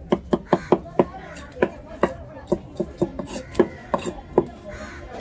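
Heavy knife striking sankara fish on a wooden log chopping block: a run of sharp knocks at about three a second, with faint scraping between strokes. The knocks thin out toward the end.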